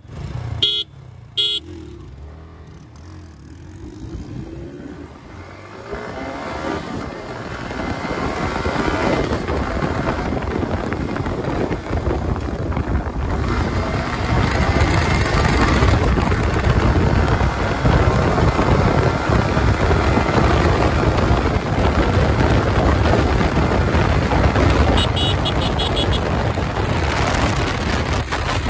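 A few short motorcycle horn toots as a start signal, then the Yamaha R15M's 155 cc single-cylinder engine accelerating hard from the rider's seat. Engine and wind noise build steadily for about ten seconds and then hold loud as the bike passes 100 km/h.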